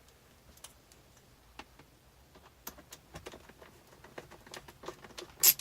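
Light, irregular clicks and taps from hand work on the steering column's screws and plastic trim, getting busier after a couple of seconds, with one sharp click near the end.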